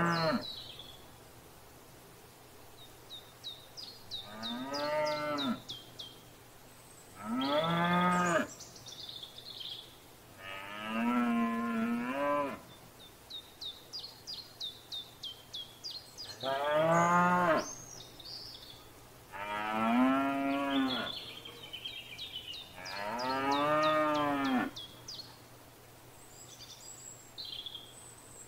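Cows mooing, about seven long calls a few seconds apart. Between the moos, a small bird sings fast runs of short, high, repeated notes.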